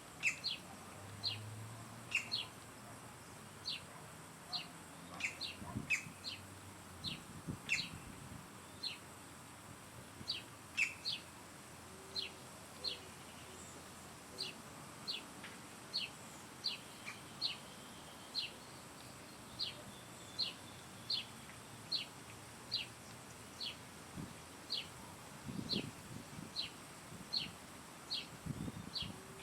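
A bird repeating a short, high call note over and over, about one to two notes a second, each note dropping quickly in pitch.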